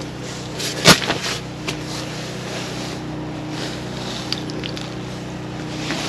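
A snowmobile engine idles steadily with a low hum. A sharp knock about a second in and a few light clicks later come from handling the bluegill as the jig is worked out of its mouth.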